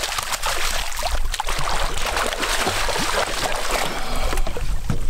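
Water splashing and sloshing against the side of a boat as a muskie thrashes in a landing net, with a steady low rumble underneath; the splashing thins out near the end.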